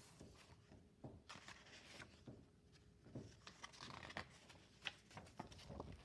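Faint rustling and soft clicks of a picture book's paper pages being handled and turned.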